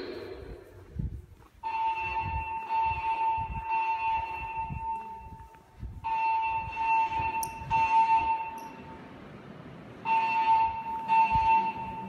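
Fire alarm speakers of a Siemens MXL-V voice-evacuation system sounding the temporal evacuation tone: a steady beep in three rounds of short pulses, each round followed by a pause. Soft footsteps on a tiled floor run underneath.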